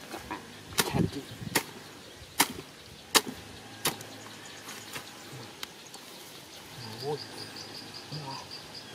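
Five sharp chopping blows, about three quarters of a second apart, over the first four seconds. From about seven seconds in, an insect's rapid pulsing chirp.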